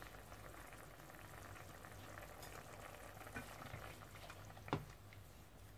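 Tomato sauce bubbling faintly at a simmer in a stainless steel pot, with scattered small pops and a spoon stirring through it. One sharp knock comes near the end.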